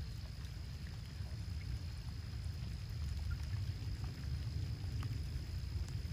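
Low, uneven rumble of wind buffeting the microphone, with a faint steady high-pitched tone above it.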